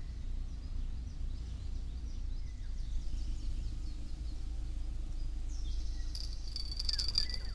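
Outdoor riverbank ambience: a steady low rumble of wind on the microphone, with faint short bird chirps. Near the end a high, steady buzzing whir with fast ticking comes in.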